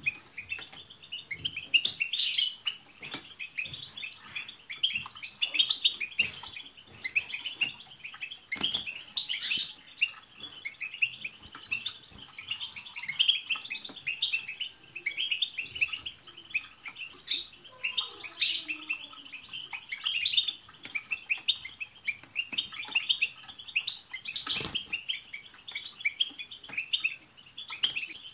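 A flock of European goldfinches twittering together: a dense, unbroken chatter of quick high chirps and trills, with sharper call notes mixed in.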